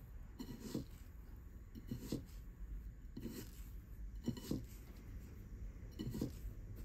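Fingers pinching and pressing dry breadcrumbs onto a batter-coated eggplant slice on a plate, making short crunchy rustles five times, roughly a second and a half apart.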